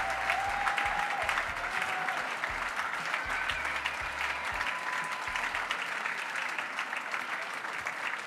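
Large audience applauding, gradually dying down.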